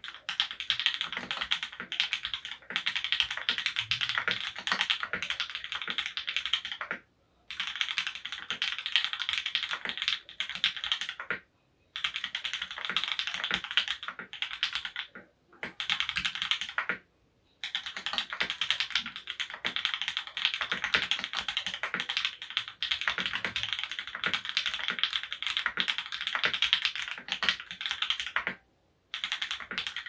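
Fast, steady typing on an Orion v2.5 custom mechanical keyboard with lubed Marshmallow switches on an FR-4 plate, a dense run of keystroke clacks. There are a few brief pauses between bursts.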